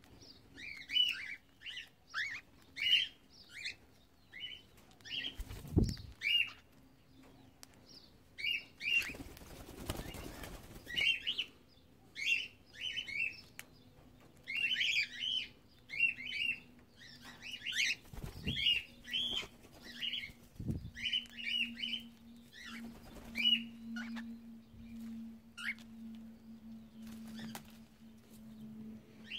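Cockatiels chirping over and over in short, scratchy calls, with bursts of wing flapping and a few soft thuds as birds take off and land.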